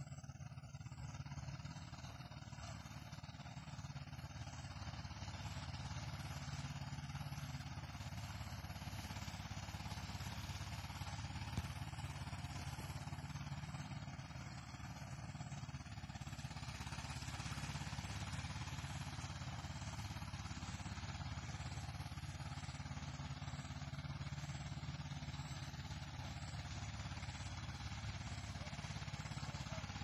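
Small engine of a rice threshing machine running steadily.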